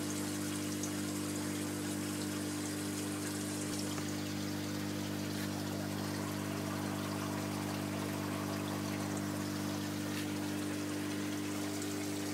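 Aquarium water trickling and splashing steadily, as from a filter outflow, over a steady low motor hum.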